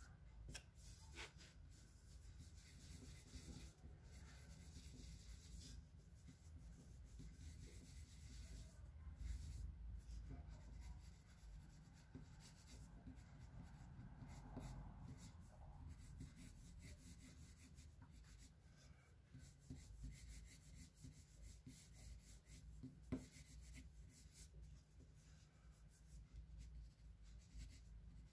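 Faint scratching of a pencil on paper in short, uneven sketching strokes, with one sharper tick about two-thirds of the way through.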